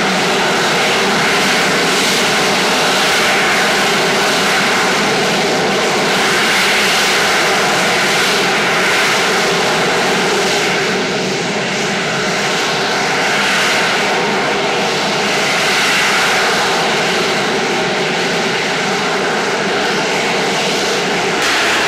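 AV-8B Harrier's Rolls-Royce Pegasus turbofan running at high thrust as the jet hovers: loud, steady jet noise with a few faint steady tones, swelling and easing gently every couple of seconds.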